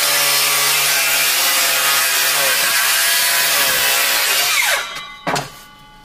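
Circular saw cutting across a milled red oak plank. The motor runs steadily through the cut, its pitch dipping under load, and winds down about five seconds in. A single sharp knock of the board follows.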